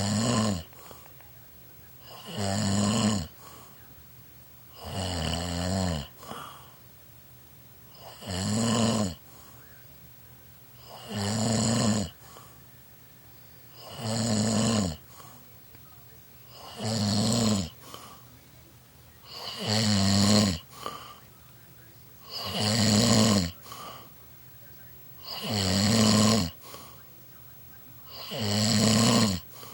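A man snoring in a steady rhythm: a rasping snore about every three seconds, each lasting about a second, with quiet breaths between.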